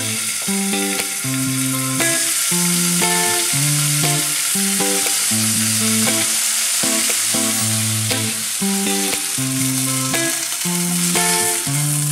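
Chicken strips sizzling in hot olive oil in a frying pan, the sizzle getting louder about two seconds in, with background music of clear picked notes over a bass line playing throughout.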